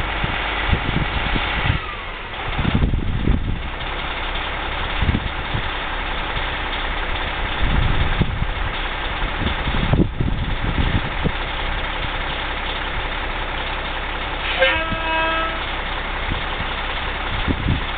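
Converted highway coach's diesel engine idling steadily. A short horn toot sounds about three-quarters of the way through.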